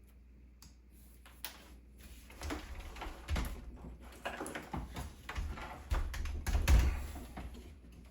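Irregular clicks, taps and knocks from hands handling computer hardware, with a few dull low thumps. The sounds grow busier about two and a half seconds in, and the loudest knock comes near the end.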